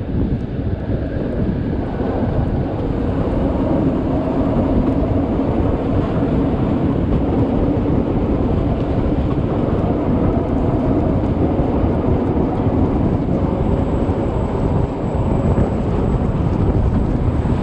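Steady rumble of a Rhaetian Railway passenger train's coaches running over the stone viaduct, heard from an open coach window with wind on the microphone.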